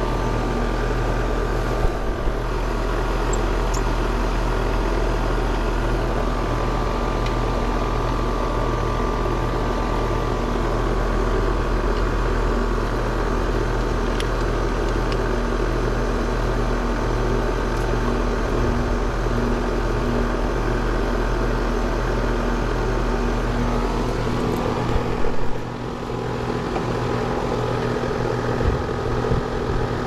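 Heat pump outdoor unit running in heat mode, compressor and condenser fan giving a steady hum with several steady tones. The low part of the hum drops away near the end.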